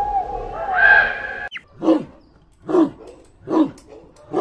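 Animal calls: a warbling series of rising and falling calls, then after an abrupt cut four short, deep calls evenly spaced about a second apart.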